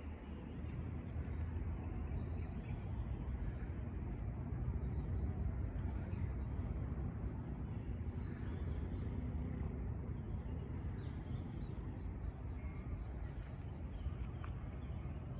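Steady low rumble of a car on the move, road and engine noise.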